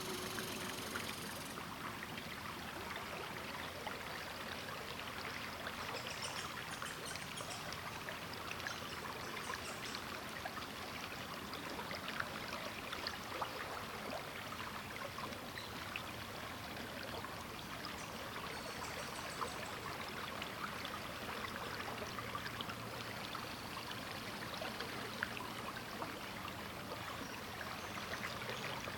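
The Sturgeon River's flowing water, a steady, even rush.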